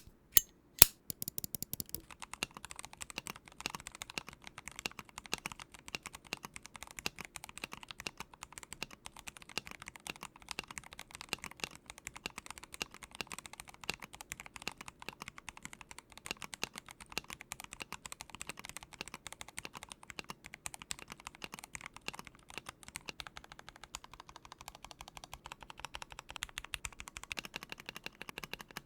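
Continuous fast typing on a Vortex PC66 mechanical keyboard in stock form, with linear Gateron Pro Silver switches and PBT keycaps: rapid, irregular keystrokes. Two sharp, louder clicks come in the first second, before the typing settles in.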